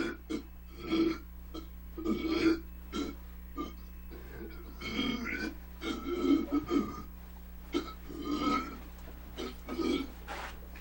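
A man burping again and again, a string of about a dozen short and longer belches, over a steady low electrical hum.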